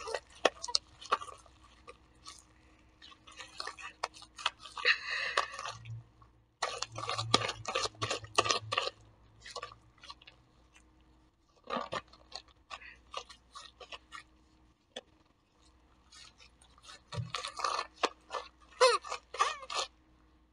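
Sticky homemade glue-and-laundry-detergent slime squelching and crackling as gloved hands knead and stretch it, in several bursts of quick clicks and pops with a lull in the middle. The slime is still sticky and clings to the gloves.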